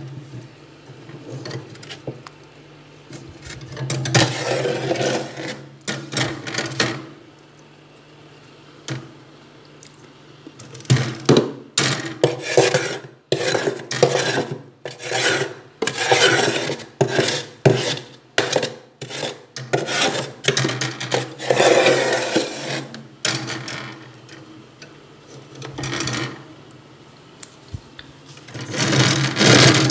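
Frost being scraped off the inside wall of a freezer in rough rasping strokes, with a quick run of many short strokes through the middle and longer strokes near the start and end.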